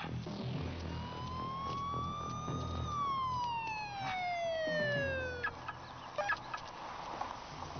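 A single siren-like wail that rises slowly, then falls steadily in pitch over a couple of seconds. A few sharp knocks follow near the end.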